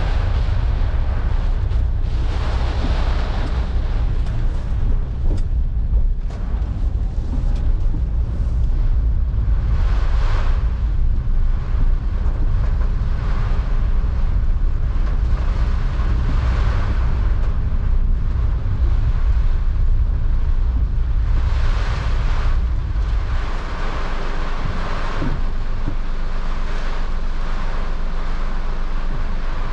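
Heavy runoff from typhoon rainfall rushing as a torrent: a loud, continuous roar of water with a deep rumble underneath that eases slightly about three-quarters of the way through.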